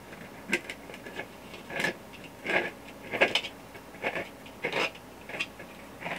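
3D-printed plastic threads being screwed together by hand as a printed part is twisted into the moon lamp globe, giving short dry scraping clicks about every two-thirds of a second.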